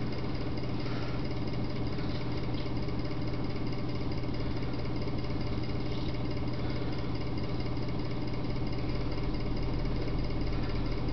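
A steady low hum of background noise, with a few faint rustles as hand puppets are handled.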